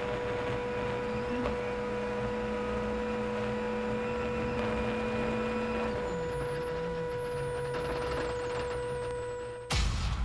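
Skoda Fabia R5 rally car's turbocharged four-cylinder engine running at steady revs with a steady drivetrain whine, then dropping in revs about halfway through as the car slows. A sudden loud whoosh comes near the end.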